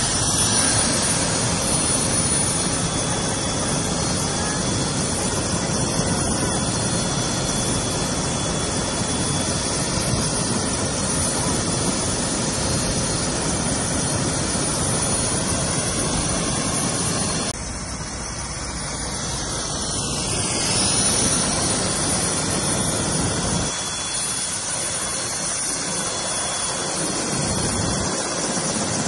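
Bell 407 police helicopter running on the ground, a steady turbine whine and rush of rotor noise. The level drops abruptly twice in the latter half.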